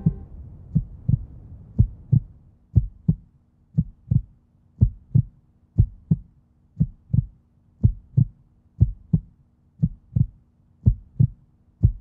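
Heartbeat sound effect: low thumps in lub-dub pairs, about one beat a second, with a faint steady low hum joining about two seconds in.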